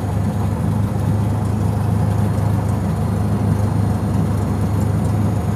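Light single-engine aircraft's piston engine and propeller running steadily, heard from inside the cockpit as an even low drone.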